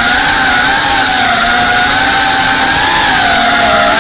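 FPV drone's brushless motors and propellers whining, heard from a camera mounted on the drone itself; the whine wavers slightly up and down in pitch with the throttle.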